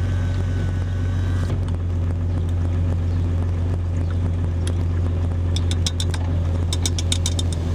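Jeep engine idling with a steady low hum inside the cab. A quick run of light clicks comes in about five and a half seconds in.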